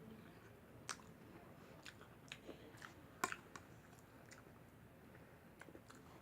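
A person chewing food quietly, with scattered wet mouth clicks and smacks; the sharpest click comes about three seconds in.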